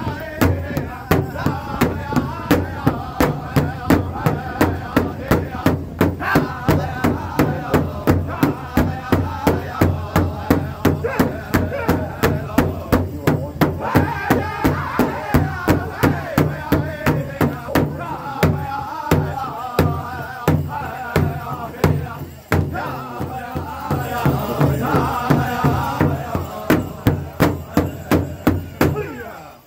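Powwow drum group singing together in high male voices around a big hide-covered drum, several beaters striking it in unison in a steady, even beat of about two to three strokes a second. The beat falters briefly past twenty seconds in, then carries on.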